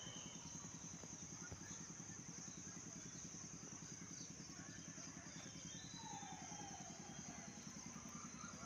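Faint, steady engine hum with a fast, even pulse, with a faint falling tone about six seconds in.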